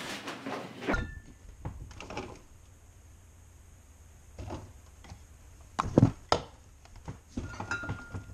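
Refrigerator door opened and condiment bottles and jars taken from its door shelves: scattered quiet knocks and clicks, with two sharper ones about six seconds in, over a low steady hum.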